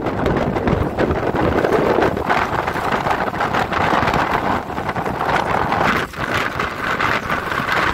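Wind buffeting the microphone: a steady rushing noise that gusts up and down, dipping briefly about six seconds in.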